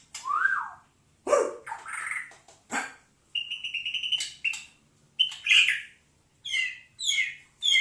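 Oriental magpie-robin singing: a varied string of short phrases with brief pauses between them. The phrases mix whistled glides, a repeated clear note, harsh scratchy notes and quick trills.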